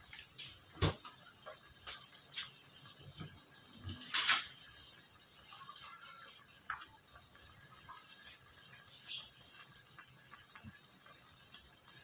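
Fish broth simmering in a wok on a stove burner: a steady high hiss with scattered small pops and bubbles. One louder knock comes about four seconds in.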